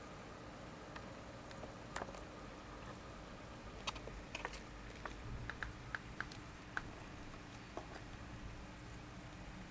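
Aquarium box filter running on air lift: a faint steady hum with scattered small watery ticks and pops of bubbles, clustered about four to seven seconds in.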